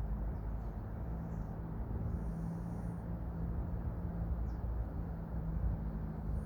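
Outdoor ambience: a steady low rumble with a low hum under it, a few faint short chirps, and a faint high hiss that comes and goes every two to three seconds.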